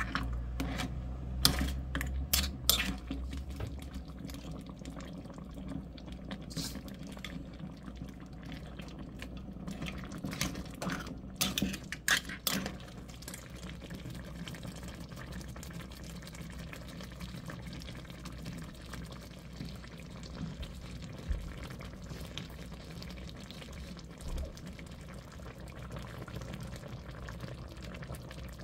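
Seafood pasta sauce simmering and bubbling in an earthenware ttukbaegi pot. A spoon clicks against the pot a few times in the first three seconds, with a few more sharp knocks about ten to thirteen seconds in.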